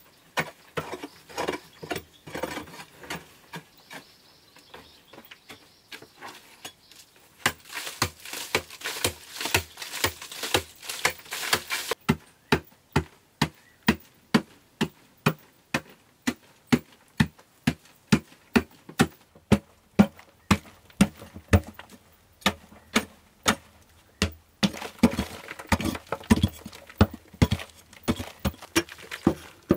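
Short-handled pick striking a hard-packed earth wall over and over, about one and a half blows a second, chipping loose soil away, with stretches of quicker chipping.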